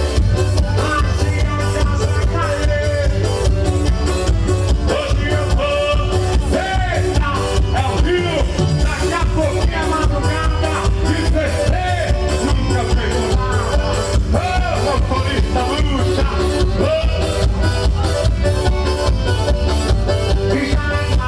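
Live forró music with a steady, quick beat and heavy bass, played loud throughout.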